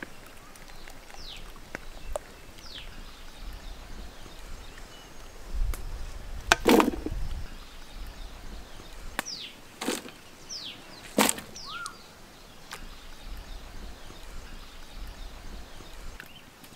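Metal skimmer knocking sharply against the rim of an aluminium cooking pot three times while parboiled potato slices are lifted out of boiling water; the loudest knock is near the middle. Short, high, falling bird chirps come and go in the background.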